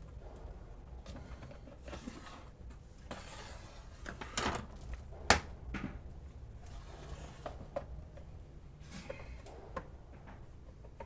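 Scattered clicks and knocks of the range hood's casing and parts being handled and fitted back together as the hood is closed up, with one sharp knock about five seconds in.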